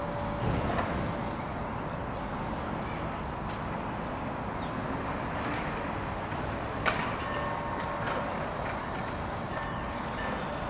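Outdoor city background: a steady hum of distant traffic, with one sharp click about seven seconds in and a few faint high chirps.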